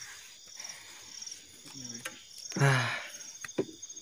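Field crickets chirping in quick, evenly pulsed high trills that repeat steadily. About two and a half seconds in, a short, loud human vocal sound cuts in.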